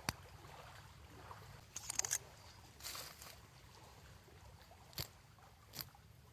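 Exotac titanLIGHT-style flint-wheel lighter being struck without lighting: a few short scratchy rasps and sharp clicks, the lighter seemingly out of fuel.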